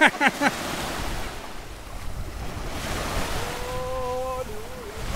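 Small sea waves washing onto a fine-pebble beach, with wind buffeting the microphone. A few short vocal sounds come right at the start, and a little before four seconds in a voice holds a wavering note for about a second.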